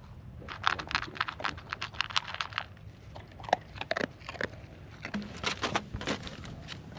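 A corgi crunching and chewing its food: a quick, irregular run of sharp crunches and clicks.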